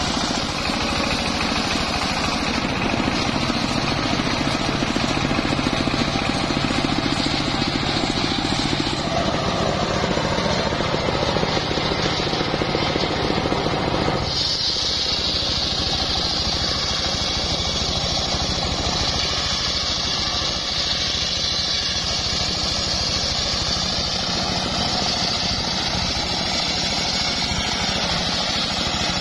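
Homemade engine-driven circular sawmill running, its blade ripping lengthwise through a large sengon (albizia) log with a steady, loud mix of engine drone and cutting noise. About halfway through, the sound switches to a higher, hissing whine of the blade in the wood.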